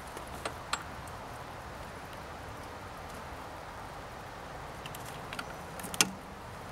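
Steady hiss of rain falling, with a few sharp clicks and knocks as a scrub brush hits the engine parts, the loudest near the end.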